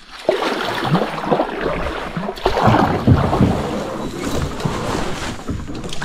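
Fast-flowing river water rushing and gurgling around a kayak in a rough stretch of current, with irregular small splashes.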